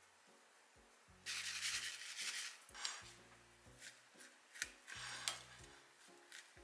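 Plastic rice paddle stirring and scraping cooked rice against a ceramic bowl, mixing in shredded shiso: a rough scraping run starting about a second in, then several shorter strokes. Soft background music plays underneath.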